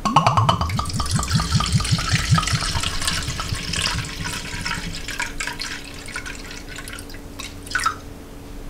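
Jameson Irish whiskey glugging out of the glass bottle's neck into a plastic measuring cup: a rapid run of glugs at first, settling into a steady pour that tails off about five seconds in.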